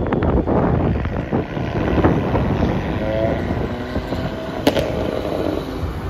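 Wind buffeting the microphone over steady road and traffic noise from a moving car.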